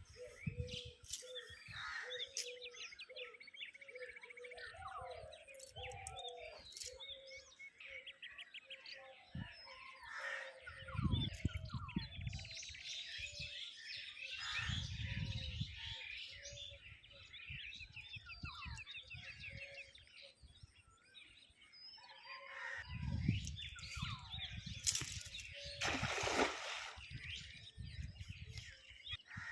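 Many birds chirping and trilling together in a continuous chorus, with several stretches of low rumbling noise underneath.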